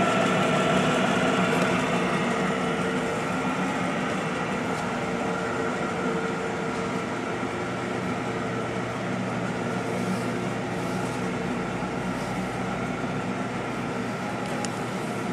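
American Pacemaker engine lathe with a 10-horsepower motor, running under power with a steady mechanical hum of several pitched tones. The hum eases a little in level over the first few seconds.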